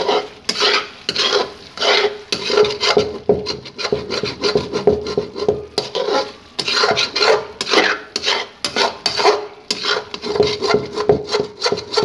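Slotted metal spoon stirring chicken and thick gravy in a metal karahi, with repeated scraping strokes against the pan as the remaining liquid is cooked down.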